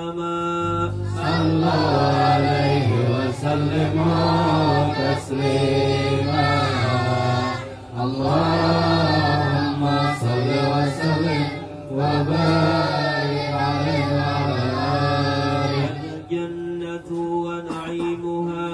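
Men's voices chanting Islamic devotional praise of the Prophet (shalawat) in habsyi style. A lead voice holds a note, then the group joins in a loud unison chant from about a second in, dips briefly twice, and thins to a single voice near the end, over a steady low drone.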